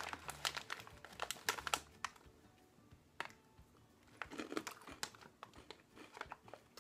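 Snack wrapper crinkling for about the first two seconds, then a person crunching and chewing a crunchy sweet-corn snack, with scattered crackles.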